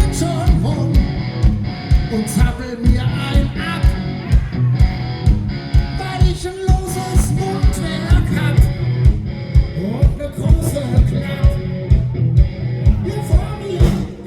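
Live rock band music: a steady drum beat about twice a second under electric guitar, with some singing.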